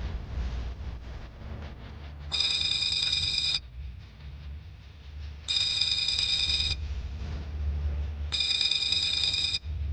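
An electronic ringing tone sounds three times, each ring about a second long and about three seconds apart, over a steady low rumble.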